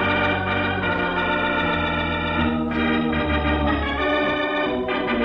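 Organ music bridge: a run of sustained chords that change every second or two, used as a dramatic sting marking the end of a scene.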